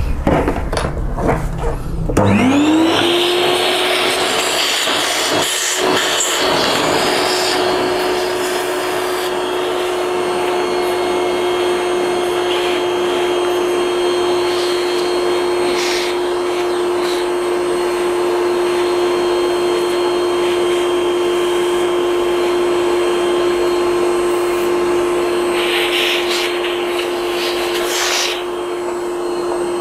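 A few handling knocks, then a vacuum cleaner is switched on about two seconds in. Its motor spins up quickly to a steady whine over rushing air and starts to wind down at the very end.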